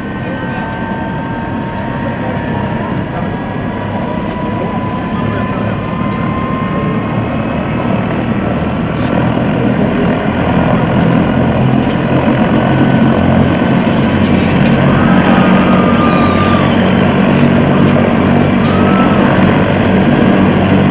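Turbine helicopter running on the ground, its rotor throb and engine whine growing steadily louder, strongest in the second half.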